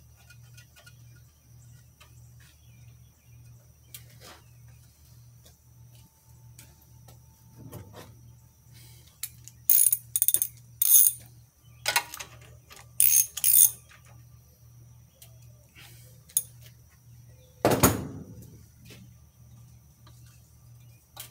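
Socket wrench ratcheting in several short bursts about halfway through, turning a spark plug into a lawn tractor engine. A single loud knock a few seconds before the end.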